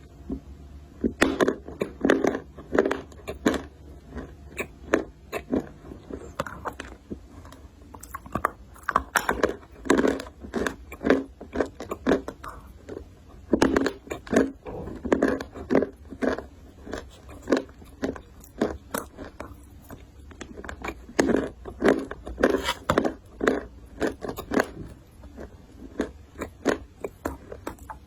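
Dry clay (loess), shaped like a chocolate cake, bitten and crunched close to the microphone: sharp crackling crunches come in bunches every second or two, with short pauses between them.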